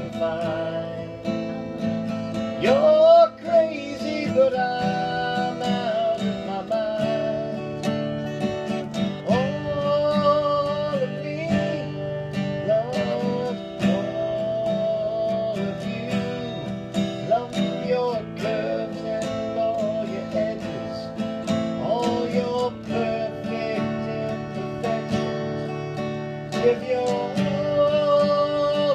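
Steel-string acoustic guitar played continuously, chords strummed and picked. A wavering melody line glides up and down above the chords.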